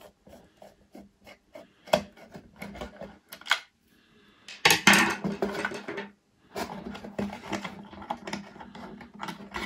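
Small metal parts being handled inside a tobacco filling machine's plastic housing as a metal bracket is unscrewed and taken out. Scattered clicks and taps come first, then denser metallic rattling and scraping from about halfway through.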